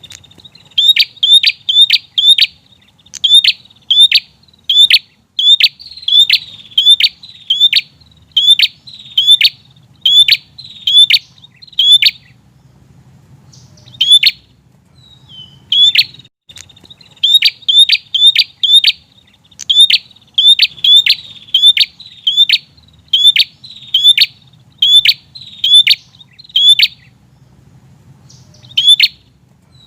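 Prenjak (prinia) calling insistently: a long run of sharp, loud chip notes, about two to three a second, broken by short pauses about twelve seconds in and again near the end.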